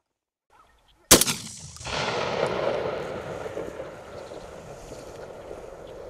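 A single gunshot about a second in, followed by a long echo rolling back off the hillsides and slowly dying away.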